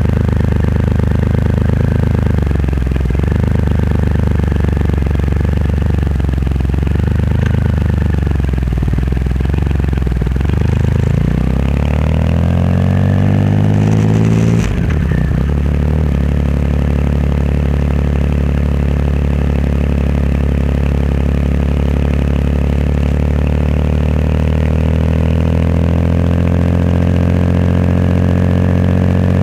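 Triumph Rocket 3 Roadster's inline-three engine running through a custom exhaust, heard from behind on the move. The revs rise and fall for the first ten seconds or so, then climb steadily as it accelerates, break off briefly about fifteen seconds in, and settle into a steady run with the pitch slowly rising.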